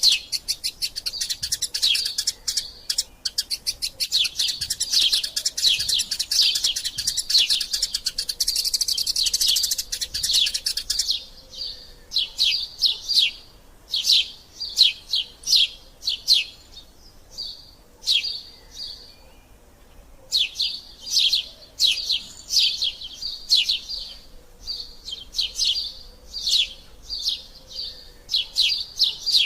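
Eurasian tree sparrows chirping in a squabble: a dense, fast, overlapping chatter for the first eleven seconds or so, then separate sharp chirps in short runs, with a brief pause a little past the middle.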